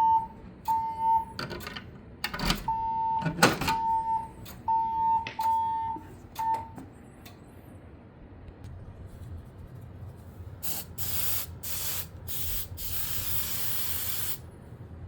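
Fire alarm speakers of a Siemens Desigo Modular XLS-V voice-evacuation system sounding their alert tone, a pulsed beep near 1 kHz about twice a second, with a few knocks among the beeps. The tone stops about six and a half seconds in. Several short hissing bursts follow near the end.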